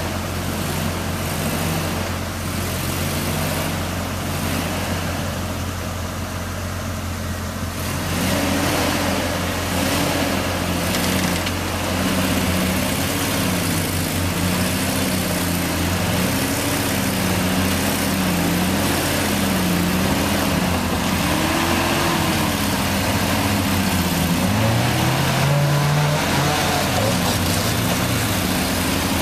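Engine of a lifted 1985 Toyota 4x4 pickup crawling up a steep mud slope under load. It runs at low, steady revs at first, then about eight seconds in it gets louder and revs up and down repeatedly as the driver works the throttle.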